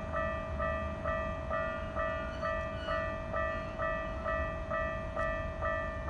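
Japanese railway level-crossing warning bell ringing, a repeating pitched clang just over two strokes a second, the signal that a train is approaching.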